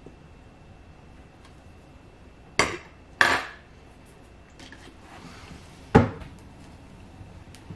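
Three sharp knocks on a hard surface: two clinking ones about half a second apart, then a heavier thud nearly three seconds later, each dying away quickly.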